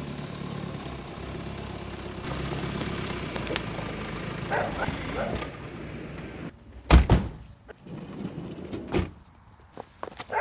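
A steady low rumble, then a loud thump about seven seconds in and a second, lighter thump about two seconds later.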